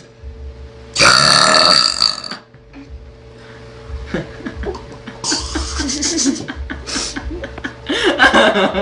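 A young woman lets out a long, loud burp about a second in, with a second, shorter burp about five seconds in. Laughter starts near the end.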